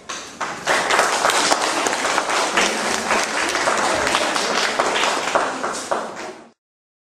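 Audience applauding: a dense patter of many handclaps that cuts off suddenly near the end.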